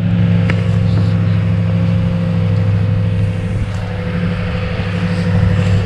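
A vehicle engine idling: a steady, even, low hum that holds at one pitch throughout.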